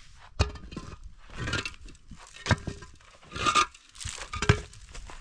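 Hollow concrete blocks being set down and shifted into place on gritty ground: three sharp knocks about two seconds apart, with gritty scraping between them.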